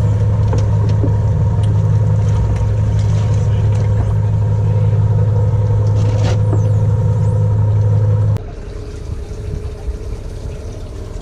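A loud, steady, low mechanical hum from an engine or motor running at a constant speed. It cuts off abruptly about eight seconds in, leaving quieter wind and water noise.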